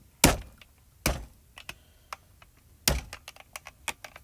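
Three hard knocks, the first the loudest, among a scatter of light clicks and taps: objects being handled and set down, as when a camera and craft supplies are moved about.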